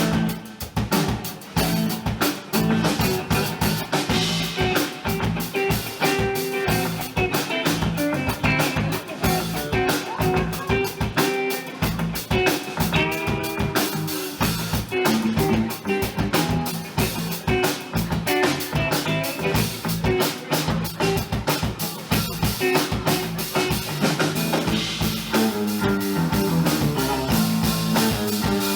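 Live band playing an instrumental passage: a drum kit beating a busy, steady rhythm under plucked guitar.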